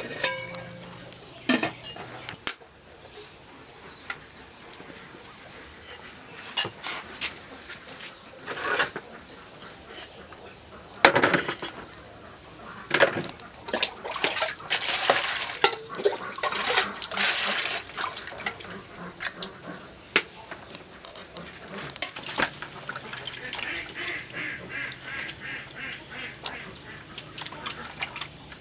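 Clinks of a ceramic bowl and aluminium steamer pot, then knocks, rustling and water splashing as round eggplants and cucumbers are handled and washed by hand in a plastic basin.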